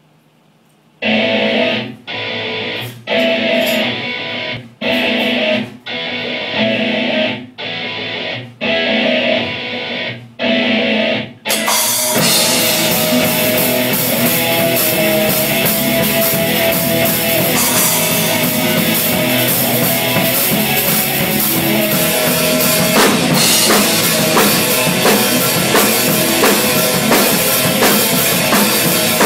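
Rock music with a drum kit and guitar. It opens with a series of separate chord hits, each about a second long with short breaks between them. About eleven seconds in the full band with drums comes in and plays on without a break.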